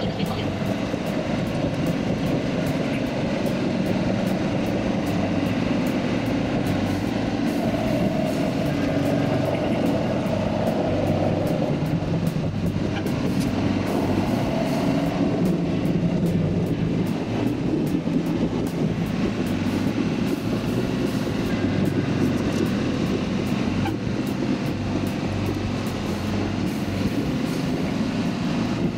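Electric commuter train running at speed, heard from inside the front car behind the driver's cab: steady wheel-on-rail and motor noise. A higher motor whine comes in for a few seconds about a third of the way through.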